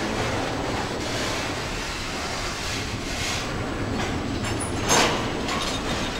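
Double-stack intermodal train's loaded well cars rolling past close by: a steady rumble and clatter of steel wheels on the rails, with one sharp, louder clack about five seconds in.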